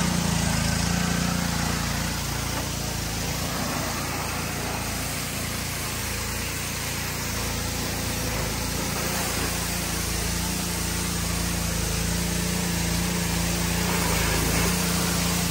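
Pressure washer running and spraying water onto a car: a steady motor hum under the hiss of the spray. The hum drops back in the middle and comes back strongly about two-thirds of the way through.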